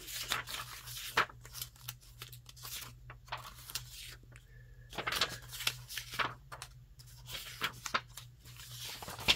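Sheets of Florentine decorative paper being handled and sorted: a quick, irregular run of paper rustles, flicks and slides, over a faint steady low hum.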